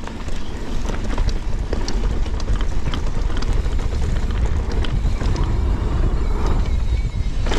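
Wind rushing over the camera microphone and tyre noise from a mountain bike riding fast down a dirt trail, with scattered clicks and rattles from the bike over the bumps.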